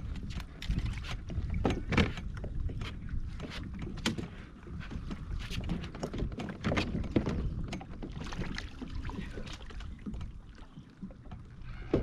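Irregular knocks and clicks from a fishing kayak and the gear in it, over a low steady rumble.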